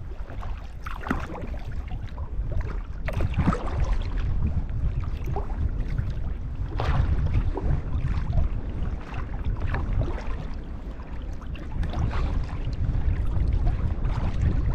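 Water slapping and splashing against a kayak hull on choppy lake water, in irregular splashes, over a low rumble of wind on the microphone.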